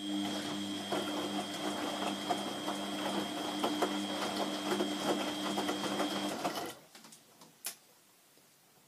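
Beko front-loading washing machine in its third rinse: the drum motor hums with a steady whine as the drum turns, with water and wet laundry sloshing and knocking inside. The motor stops about seven seconds in and the drum comes to rest, followed by a single click.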